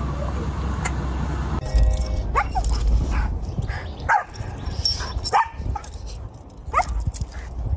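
A dog giving a string of short, high yips and barks, about half a dozen spaced irregularly over five seconds, each with a quick bend in pitch.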